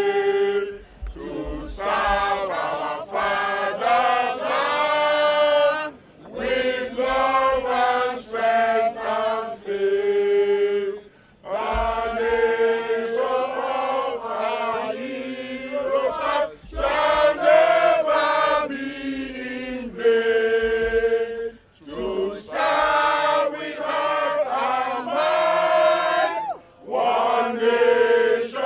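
A crowd of protesters singing together in unison, in phrases of about five seconds separated by short breaks, some phrases ending on a held note.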